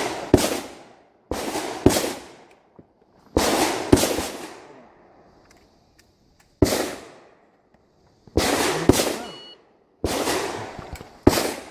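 Rifle shots on a shooting range, about ten in irregular succession, some in quick pairs about half a second apart. Each shot is followed by an echo that dies away over about a second.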